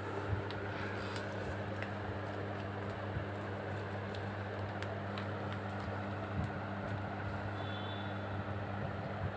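Steady mechanical hum with an even hiss behind it, the background noise of a room, with a few faint clicks.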